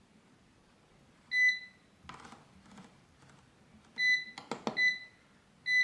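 Xiaomi Mi Smart Air Fryer's control panel beeping: four short, high electronic beeps as its settings menu is stepped through with the control button, with a few sharp clicks in between.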